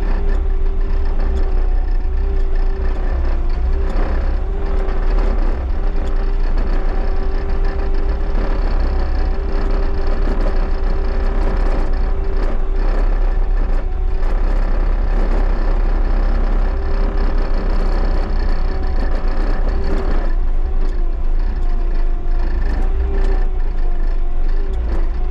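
Bobcat skid steer's diesel engine running steadily as the machine drives, with its pitch wavering a little, and frequent clanks and rattles from the machine.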